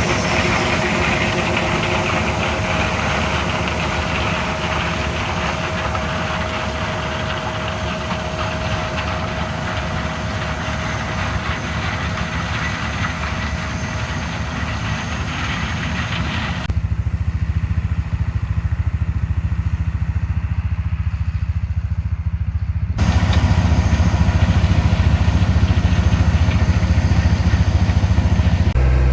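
Diesel harvest machinery running steadily. The sound switches abruptly twice in the second half to a deeper, louder engine.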